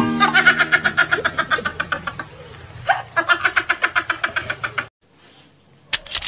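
Laughing sound effect: quick repeated high 'ha-ha-ha' pulses in two runs, broken by a short rising squeal. A sudden loud burst of noise cuts in right at the end.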